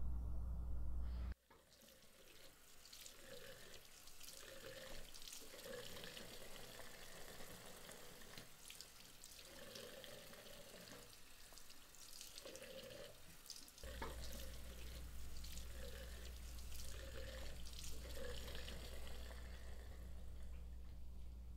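Water running steadily from a tap into a sink. A low hum sits under it at the start, drops out after about a second, and comes back about halfway through.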